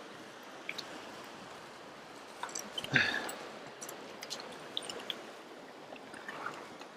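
Shallow river running over stones, a steady rush of water, with a few faint clicks and one brief louder sound about three seconds in.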